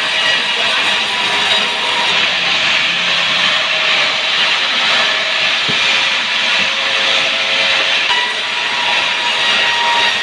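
Sawmill saw cutting through sengon (albizia) wood: a steady, loud hissing whine with faint ringing tones from the blade.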